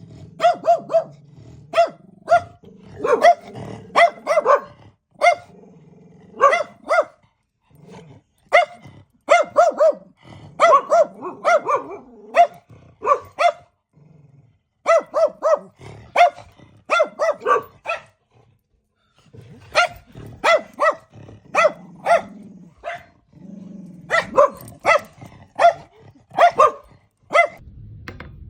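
A dog barking over and over in quick runs of short, high barks, with brief pauses between the runs.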